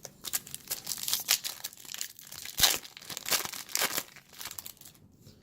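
Foil wrapper of a Topps Chrome baseball card pack being torn open and crinkled: a run of irregular crackles and rips lasting about four seconds, loudest around the middle.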